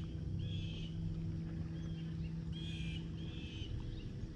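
Boat's electric trolling motor running with a steady hum, its pitch falling as it winds down just after four seconds in. A bird calls several times over it in short chirps.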